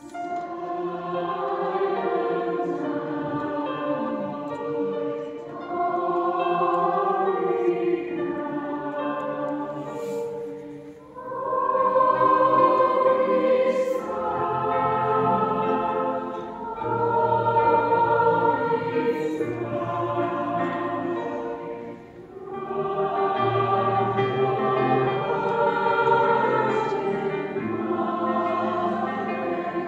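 Large mixed choir, adult chamber choir together with children's choirs, singing a Christmas carol in a large church. The singing starts right after a brief pause, with two short breaks between phrases about 11 and 22 seconds in.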